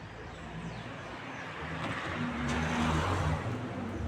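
A motor vehicle passing by: a rushing noise with a low engine hum that builds to a peak about three seconds in, then drops away.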